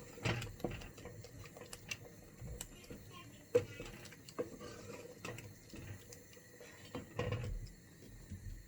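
A spoon stirring chicken curry in a pan as the sauce thickens, with scattered knocks and clinks against the pan. The sharpest knock comes about three and a half seconds in, and there is a cluster of them near the end.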